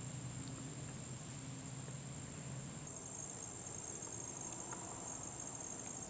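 Insects trilling in a steady, high-pitched drone, in the manner of crickets; a second, slightly lower trill joins about halfway through.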